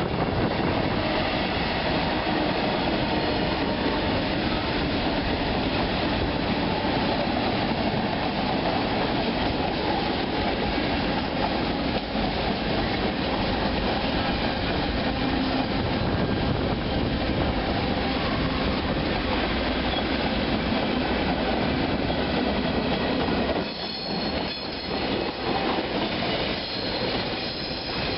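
A train's cars rolling past on the rails: a steady, loud rolling noise that drops briefly and turns choppier near the end.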